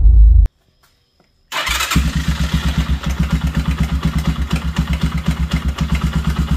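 CB250 motorcycle engine starting: a sudden burst as it catches, then running with a rapid, even pulse.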